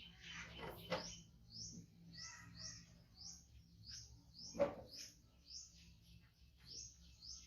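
Short, high chirps repeating about twice a second. A soft thump comes about a second in, and a louder one just past the middle.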